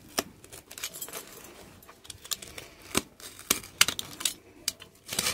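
Snap-off utility knife cutting around the edge of a sandal's platform sole, giving irregular sharp clicks and short scrapes as the blade works through the glue-hardened base.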